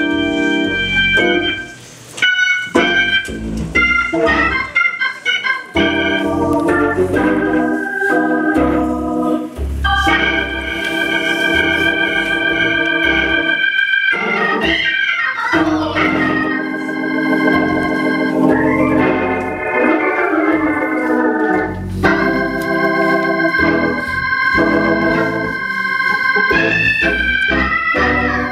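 Organ music: held chords, with quick rising and falling runs in the middle.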